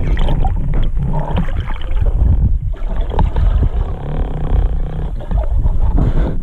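Muffled underwater sound from a camera in a waterproof housing while spearfishing: a steady deep rumble of water moving against the housing, with many small knocks and clicks and a short lull about two and a half seconds in.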